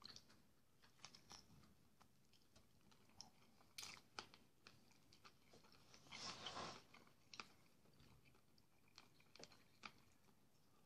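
Faint chewing of fried sausage and porridge, with scattered small clicks and a short noisy stretch about six seconds in.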